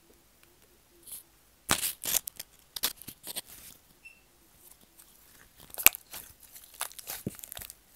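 Slime being squeezed and pulled by hand close to a microphone, giving an irregular run of wet pops and crackles that starts a couple of seconds in.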